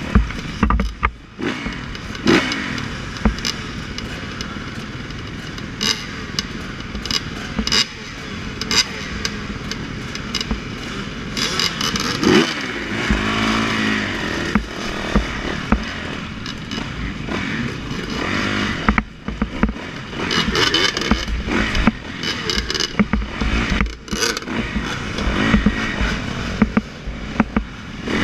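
Dirt bike engines running at low revs with short throttle blips, the loudest being the rider's own 2015 Yamaha YZ450F four-stroke single, with other dirt bikes running close by. Many sharp knocks and clatter mixed in.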